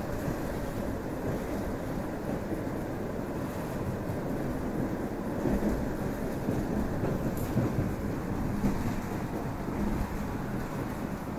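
EP2D electric multiple-unit train running between stations: a steady rumble of wheels on rails and running gear, with a few louder bumps in the second half.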